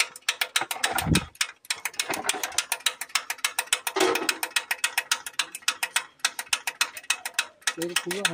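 Ratchet wrench clicking rapidly and evenly, about ten clicks a second, as a tight bleed fitting on a tractor's diesel fuel filter is worked to let air out of the fuel system.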